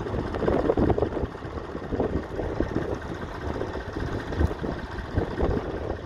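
Fordson Model N tractor's four-cylinder engine running unevenly under load as it pulls a plough.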